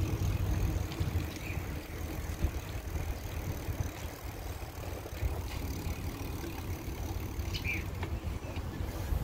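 Steady low rumble of wind on the microphone and bicycle tyres rolling on a paved path while riding, with a few faint clicks.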